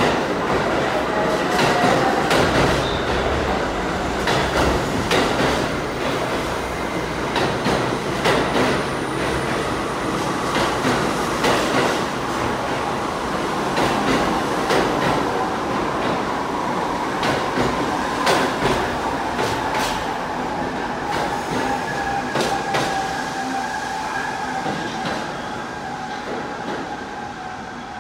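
R68 subway train running on the track, its wheels clicking rapidly over rail joints. A whining tone slowly falls in pitch through the second half, and the sound eases off near the end.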